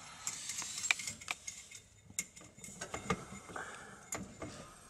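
Small metal nuts and bolts clicking and ticking irregularly as they are turned and threaded on by hand onto a car's driveshaft and carrier bearing bolts.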